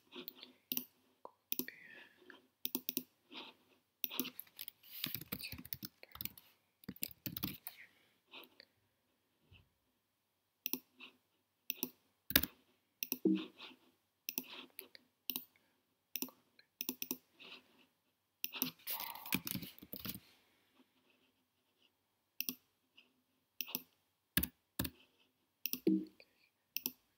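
Computer mouse clicks and keyboard typing: scattered single clicks, with runs of rapid keystrokes a few seconds in and again about two-thirds of the way through.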